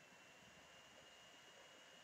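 Near silence: room tone with faint hiss and a faint steady high-pitched tone.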